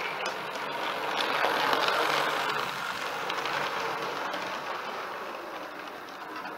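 OO gauge model train running along the layout track, a steady running noise of small wheels and motor. It swells about two seconds in, then slowly fades as the train passes.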